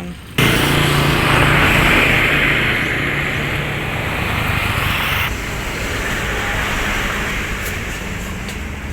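A motor vehicle's engine running with a loud hiss. It starts abruptly, and the hiss drops away about five seconds in.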